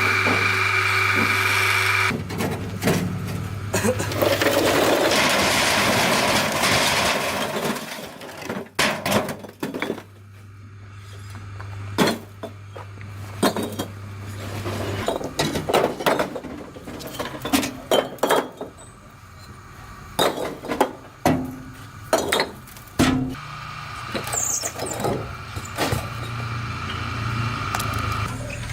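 A motor-driven tool running with a steady high whine for about two seconds, followed by a long series of scattered knocks and clatters.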